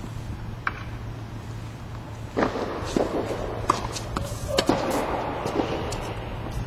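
Tennis ball hit with racquets and bouncing on the court during a rally: a few sharp pops, the loudest about two and a half seconds in and others near four and five seconds, over a steady low background rumble.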